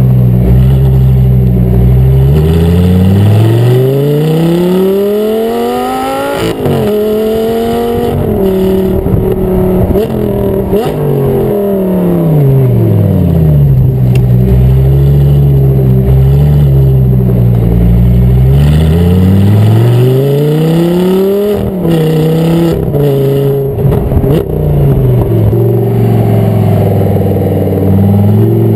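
Audi R8 V10 GT's 5.2-litre V10 through an ARMYTRIX titanium performance exhaust, heard from close to the tailpipes while the car drives. The engine note climbs hard under acceleration and ends in a sharp crack about six seconds in, then falls away and holds low. It climbs again, with a few sharp cracks and pops between about twenty-one and twenty-four seconds, settles, and starts to rise once more near the end.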